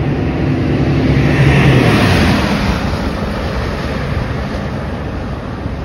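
A road vehicle driving past close by, its engine hum and tyre noise building to a peak about two seconds in and then fading, over a steady background rush.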